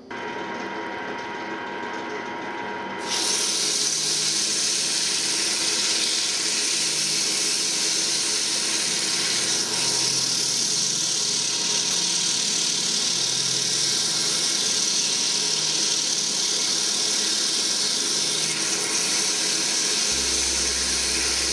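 Wood lathe motor running with a striped laminated wooden bowl spinning on it. About three seconds in, sandpaper is pressed against the turning bowl, and a loud, steady hiss of hand sanding holds until it cuts off suddenly at the end.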